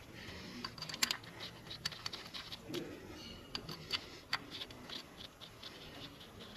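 Irregular small clicks and taps of hand tools and 10 mm bolts against metal while the ignition coil bolts are fitted by hand.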